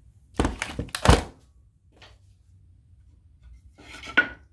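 A cluster of sharp wooden knocks in the first second and a half, then a fainter clatter near the end, from workshop handling.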